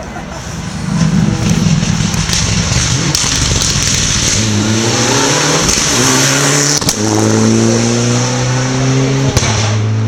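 Rally car accelerating hard toward and past the listener, its engine note climbing and dropping back several times as it shifts up through the gears, with a couple of sharp cracks.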